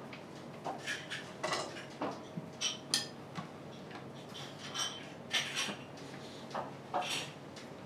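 Light, irregular clinks and taps of tableware: ceramic dishes and utensils being set down and handled, a few ringing briefly.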